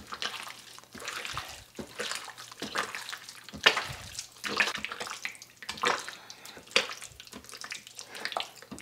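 A bare hand squishing and kneading raw chicken thighs through a thick, wet yogurt marinade in a bowl: irregular wet squelches and slaps, a few louder than the rest.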